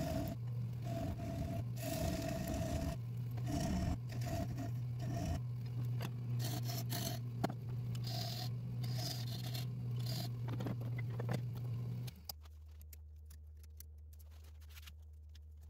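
Nova 3000 wood lathe running with a steady low hum while a turning tool scrapes at the spinning acacia bowl's tenon in short, repeated cuts. About twelve seconds in the sound cuts off suddenly to near silence.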